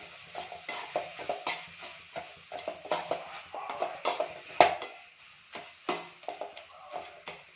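Perforated steel spatula scraping and knocking against a metal kadai while stirring and mashing softened onions and tomatoes, in irregular short scrapes and taps, with one sharper knock a little past halfway.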